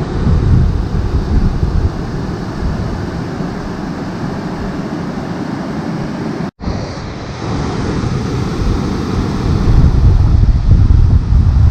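Wind buffeting the microphone: a loud, uneven low noise without speech, breaking off for an instant just past halfway and returning a little louder.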